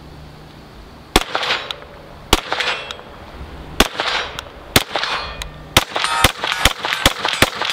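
Ruger LC Carbine in 5.7x28mm firing about nine shots, each a sharp crack with a ringing tail. The first shots come about a second apart, and they quicken to two or three a second near the end.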